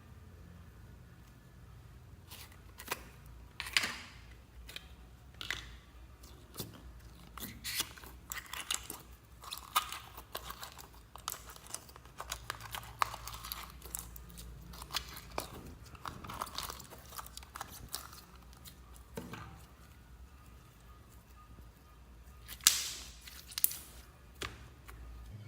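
Slime being squished and kneaded by hand, making irregular sticky crackles and pops, with a loud burst of snaps near the end.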